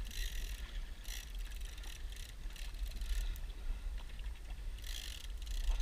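Wind rumbling on the microphone aboard a boat at sea, with water washing against the hull in a few short hissy surges.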